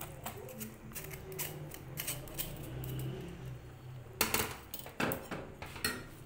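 A metal spoon clinks and scrapes against a steel mesh strainer and a steel saucepan as boiled vermicelli is knocked into sugar syrup. Two louder metal knocks come about four and five seconds in.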